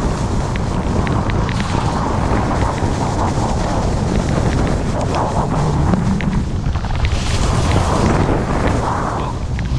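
Wind rumbling on the camera microphone while skiing downhill, over the steady hiss of skis sliding on snow. The hiss brightens for about a second, roughly two thirds of the way through.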